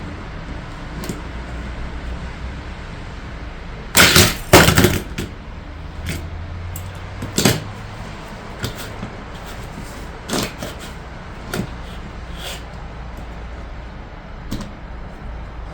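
Sharp clicks and clatters of a plastic toy car track set being handled, the loudest a double clatter about four seconds in, followed by single clicks every second or two, over a steady low hum.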